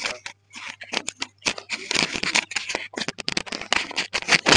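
Handling noise of a microphone as it is passed from hand to hand: irregular rustling and scraping, over a steady low hum.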